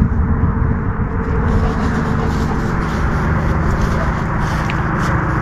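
Wind buffeting an action camera's microphone: a steady low rumble with no breaks.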